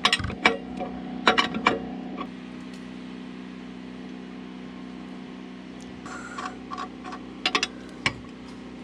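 Scattered metal clicks and knocks as a leg of a portable sawmill's bed is adjusted up or down for leveling, in short clusters, over a steady low hum.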